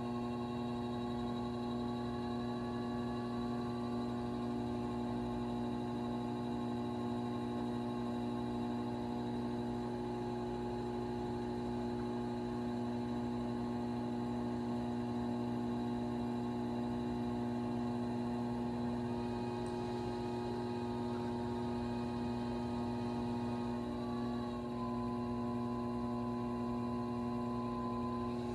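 Electric potter's wheel motor humming steadily as the wheel spins, a set of fixed tones with one of the higher tones stepping down slightly near the end.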